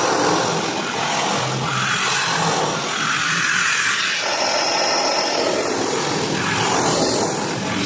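Floor polishing machine running steadily on wet travertine tile, its diamond pad grinding against the stone.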